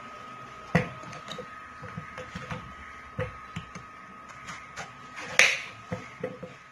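Kitchen knife cutting through peeled bottle gourd: a series of irregular crisp clicks and knocks, with a louder snap about five and a half seconds in. A faint steady high tone runs underneath.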